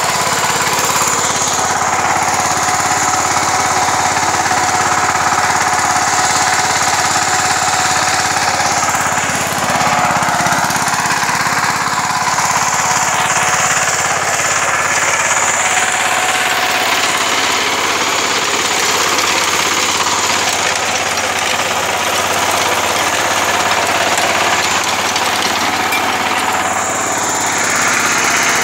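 A VST Shakti 130 DI power tiller's single-cylinder diesel engine runs steadily under load as the walk-behind tiller works the soil.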